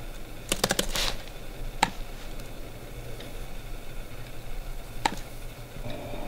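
Typing on a MacBook laptop keyboard: a quick run of keystrokes about half a second in, then single clicks near two seconds and again about five seconds in.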